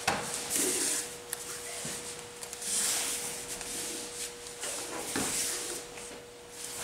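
Bare feet scuffing and sliding on foam floor mats as martial-arts uniforms rustle, with a few soft thumps among the scuffs. A faint steady hum runs underneath.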